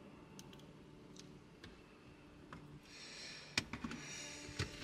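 Faint steady hum of small ventilation fans running in the van's wall, with a few light clicks and a brief rustle of handling about three seconds in.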